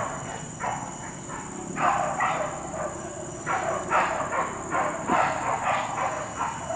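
Hunting dogs barking again and again in quick runs of several barks, out in the forest on a wild boar chase. A steady high-pitched drone runs underneath.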